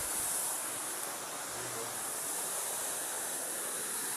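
Steady rushing of a nearby waterfall, an even hiss of falling water.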